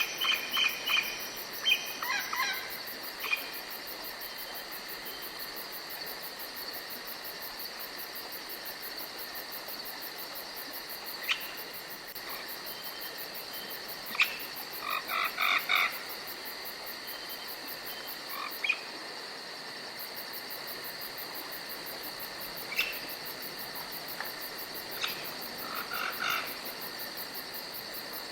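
Forest night chorus: a steady high insect trill runs throughout, while frogs give short pulsed calls now and then, in a cluster at the start and again about halfway through and near the end.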